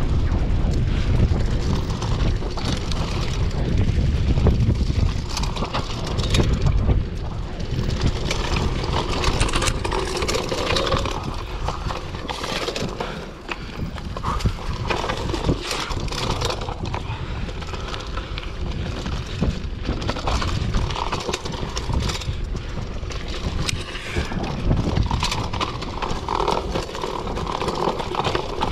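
Mountain bike riding downhill on a dirt trail: tyres rolling over the ground and the bike clattering and rattling over bumps in a constant stream of irregular knocks, with wind buffeting the microphone as a heavy rumble, strongest in the first several seconds.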